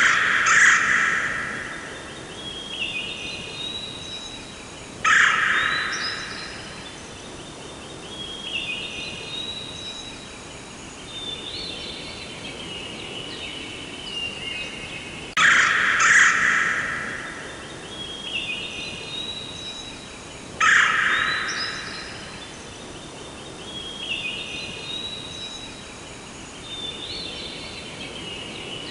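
Forest birdsong: several birds chirping and trilling over a soft hiss. A louder, harsher call comes twice about five seconds apart. The whole sequence repeats about every fifteen seconds, as in a looped ambience track.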